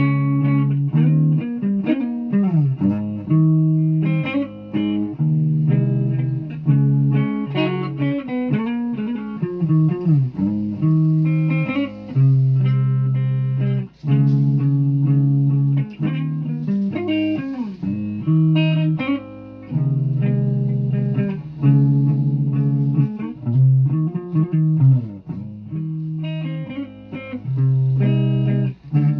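Guitar being played without singing: sustained low notes broken by short gaps, with many pitch bends and slides.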